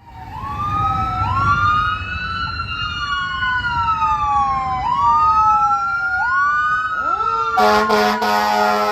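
Emergency vehicle sirens wailing, at least two out of step, each rising quickly then falling slowly in pitch. About seven and a half seconds in, an air horn starts a steady, low blare that is held to the end.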